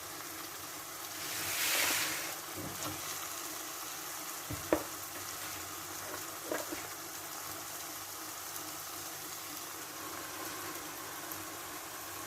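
Onions and tomatoes frying in a pan as chopped collard greens are added: a steady sizzle that swells briefly about two seconds in, with a couple of short knocks.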